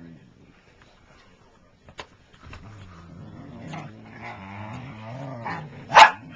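Whippets making low, wavering grumbling vocal noises during play, ending in one loud, sharp bark about six seconds in.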